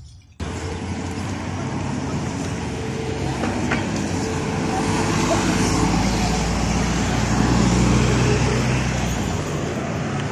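Road traffic with a city bus passing close, its engine running and tyres on the road. Starts suddenly about half a second in and grows louder through the second half before easing near the end.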